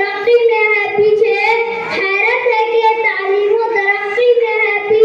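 A boy's voice chanting in a melodic recitation style, holding long notes that step up and down in pitch, with short breaths between phrases.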